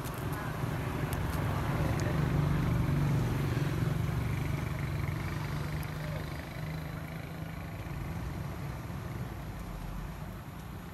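Low engine hum of a passing motor vehicle, growing louder over the first few seconds and then fading away.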